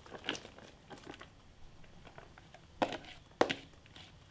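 Diced vegetables tipped from a plastic bowl into a cast-iron Dutch oven of liquid, with a few short, sharp knocks; the two loudest come about three seconds in, half a second apart.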